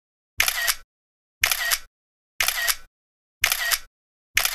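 A camera-shutter sound effect repeated five times about a second apart, each an identical double click under half a second long, marking each photo as it pops onto the screen.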